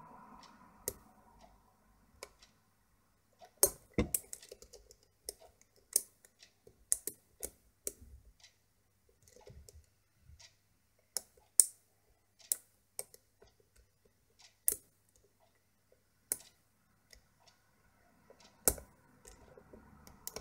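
Pick and tension wrench working the pin tumblers of a six-pin Era euro cylinder lock: irregular small metallic clicks as pins are lifted and set, a few of them much sharper than the rest.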